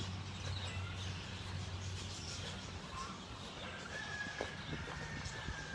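Faint chicken clucking over low background noise.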